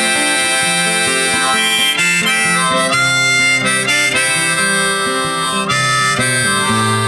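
Instrumental break in a song: a harmonica lead playing held notes over guitar.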